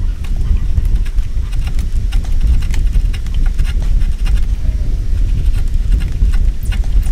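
Steel chisel paring wood by hand, the edge cutting through the grain in many small sharp clicks and crackles, over a loud steady low rumble.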